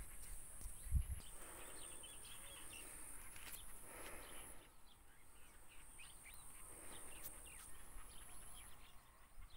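Faint garden ambience with small birds chirping now and then, a low thump about a second in, and a high thin hiss that comes and goes.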